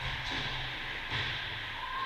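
Steady background noise of an indoor ice rink: a hiss with a low hum under it, with no distinct nearby event. The level changes slightly about a second in.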